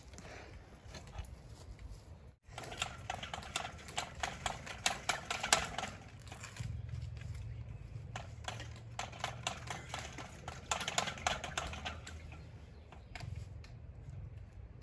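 Rapid clicking and knocking as a submersible well pump's black plastic drop pipe is wiggled up and down in the well casing, working the stuck pump past the bottom of the casing. A low hum runs under the knocking from about halfway through.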